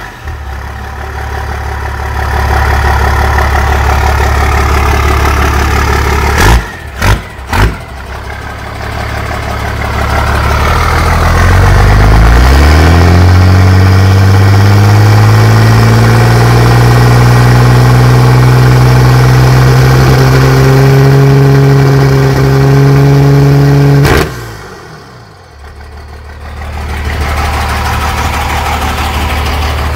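Cummins 12-valve 5.9 L inline-six diesel in a Ford F-350 running at idle just after start-up, heard from its exhaust. About six seconds in come three brief sharp knocks. The engine is then revved up, held at high revs for about ten seconds, and let fall back to idle.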